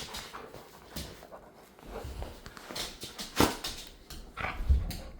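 Dog whimpering with a few short whines, the loudest about three and a half seconds in: a dog pleading for something it wants.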